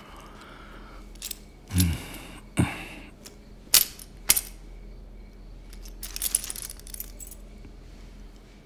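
Coins clinking inside a cloth pouch as it is handled: a few separate clinks and two soft thumps in the first half, then a quick jingle of coins about six seconds in.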